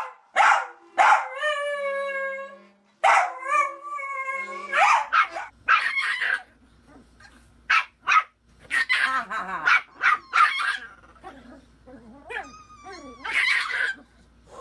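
A small dog howling and barking in a high-pitched voice: two long howls falling in pitch at the start, then a run of short yelps and barks, and a wavering howl near the end.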